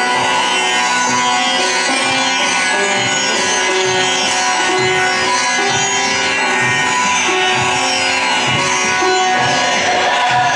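Instrumental dance music: a melody over a steady drone, with soft low drum strokes.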